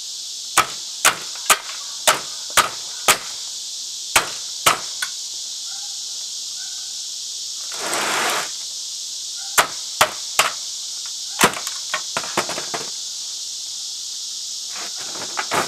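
Hand hammer striking the parts at the neck of a CRT monitor tube, breaking loose the copper yoke and magnet: a run of about nine sharp knocks in the first five seconds, a brief scrape, then four more knocks and some lighter taps. Katydids buzz steadily and high-pitched throughout.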